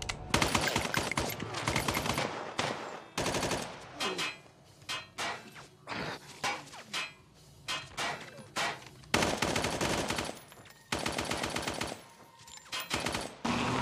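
Automatic gunfire: long bursts of rapid shots with short pauses between them, several guns firing at once.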